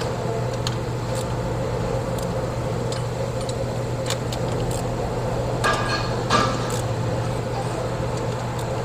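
Steady machine hum with scattered light clicks and taps.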